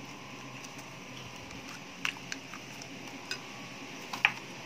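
A few short, sharp clicks and taps on a china plate as an egg is cracked and dropped onto the batter, the loudest near the end.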